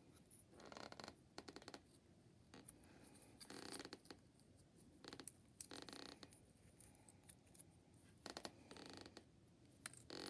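Faint rustling and scraping of a small cardstock paper-craft piece being pressed out and folded by hand, in about four short spells with light clicks between them.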